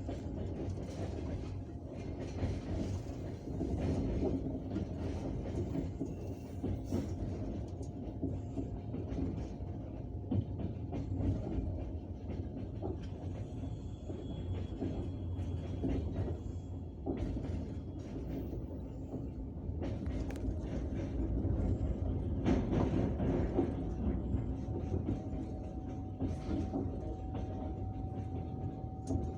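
Passenger train running at speed, heard from inside the carriage: a steady rumble with wheels clacking over rail joints. Faint steady high tones ring above it, the singing of the rails, one held for a few seconds about halfway through.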